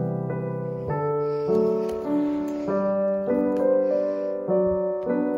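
Gentle background keyboard music: a slow run of held notes, a new one about every half second.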